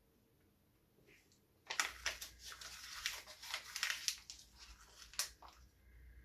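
Printed paper crinkling and tearing as it is bitten and chewed: a dense run of crackles and snaps from about two seconds in to about five seconds.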